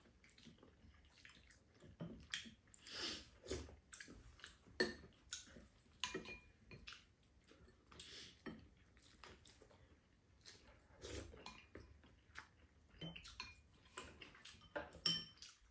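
Quiet eating sounds: spoons and chopsticks clicking against ceramic bowls, with soft slurps of egg soup and chewing, coming as short irregular sounds.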